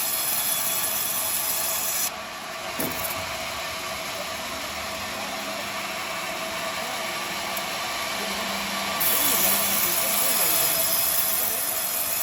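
Sawmill band saw running with a steady hum. The high hiss of the cut drops away about two seconds in and comes back about nine seconds in.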